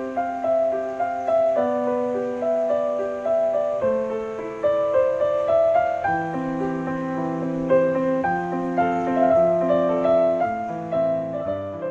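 Background piano music: a gentle melody over held chords, beginning to fade near the end.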